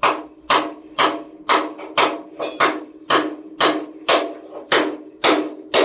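Hammer blows on a steel vehicle chassis frame, about two a second, each blow leaving the frame ringing at one steady pitch, as rivets are knocked out.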